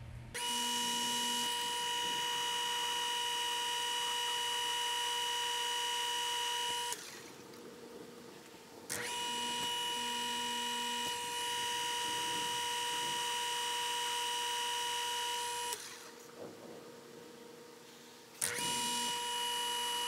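Small metal lathe running with a steady high whine as it turns down an 8-40 steel screw stud into a new revolver trigger stud. The whine cuts out twice for a couple of seconds and comes back.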